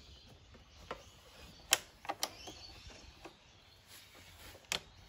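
Plastic clips on the air intake ducting and air box being undone by hand: about half a dozen sharp clicks and snaps at uneven intervals, the loudest about a second and a half in.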